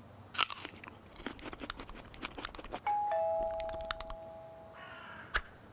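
Cartoon sound effects: a quick run of crisp crunches as a carrot is bitten and chewed. About three seconds in comes a two-note falling chime like a doorbell's ding-dong, held for about two seconds.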